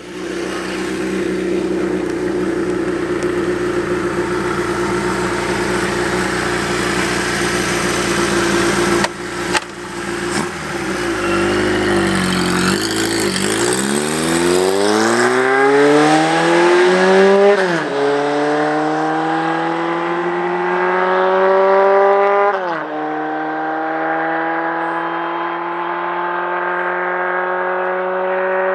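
Kawasaki Z1's air-cooled inline-four running through a PAMS 4-into-1 collector exhaust. It runs steadily under a heavy rush of noise at first, then pulls hard through the gears: the pitch climbs, then drops at each upshift, three times.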